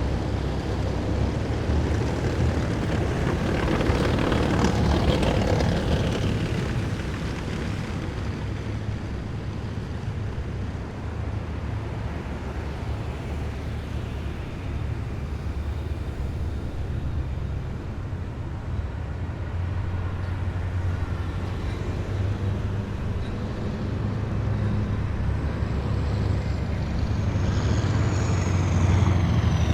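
Heavy military vehicles driving past on a city street: a steady low engine rumble, with one vehicle passing about four seconds in. Another approaches near the end, growing louder, with a high whine that falls in pitch as it comes by.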